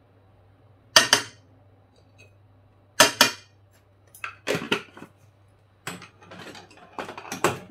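Kitchen clatter: sharp knocks and clinks of a spice jar and utensils being handled and set down. There is a single knock about a second in, a quick pair at three seconds, then a busier run of clatter in the second half, over a faint steady low hum.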